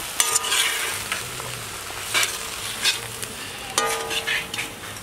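Raw banana cubes sizzling in oil in a large kadai while metal ladles stir and scrape the pan. Several sharp clinks of metal on metal ring out, the loudest about a second in and again near the end.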